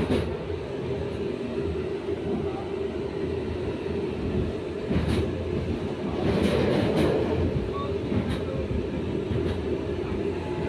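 Tram running, heard from inside the car: a steady rumble of wheels on rails, with a few sharp knocks from the track and a louder stretch about six seconds in.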